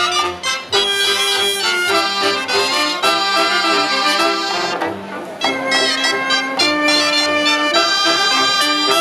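A cobla playing a sardana: reedy tenores and tibles carrying the melody over trumpets, trombone, fiscorns and double bass. The sound dips briefly about five seconds in, then the full band comes back in.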